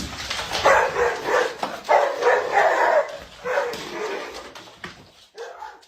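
Dog barking in a quick run of short barks, several a second, then fainter barks that trail off.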